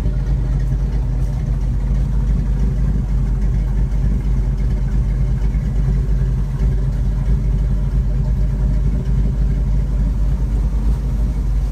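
Lifted square-body pickup truck's engine idling steadily with a low rumble.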